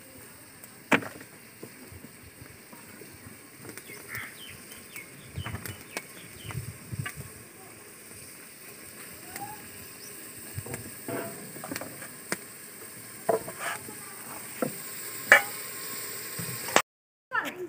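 Chopped tomatoes and onions sizzling in an aluminium pot over a wood fire, a steady frying hiss. Scattered sharp clicks and knocks run through it, the loudest about a second in and near the end.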